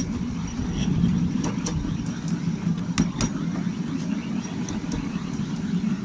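Miniature railway train running along 7¼-inch gauge track: a steady low rumble of wheels on rail, with sharp clicks at irregular intervals as the wheels pass rail joints.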